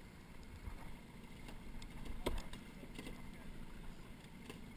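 Gear clattering aboard a small fishing boat over a steady deep rumble, with one sharp knock a little over two seconds in.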